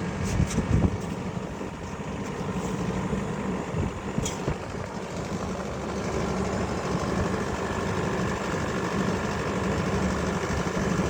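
1987 Kelvinator window air conditioner running and cooling, a steady hum over a rushing noise. A few knocks sound in the first second.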